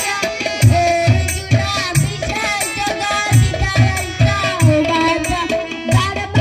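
Live music: an electronic keyboard playing a melody over a steady drum beat of about two strokes a second.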